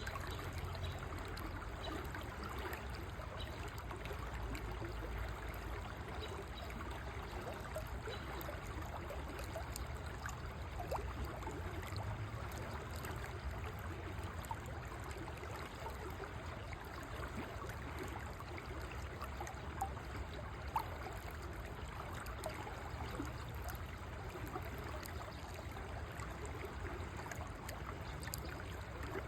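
River water flowing steadily, an even rush with small trickles and gurgles, and a couple of brief ticks about two-thirds of the way through.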